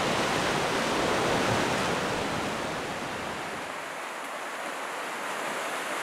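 Sea waves surging and foaming over shoreline rocks: a steady wash of surf that eases off a little about halfway through.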